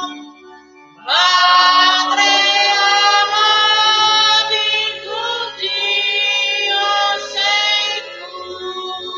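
A choir singing a slow hymn in long held notes, coming in strongly about a second in and fading toward the end.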